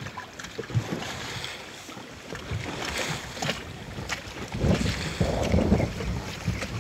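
Wind buffeting the microphone over sea noise aboard a wooden sailing raft, with scattered light clicks and knocks; the wind gusts louder about two-thirds of the way in.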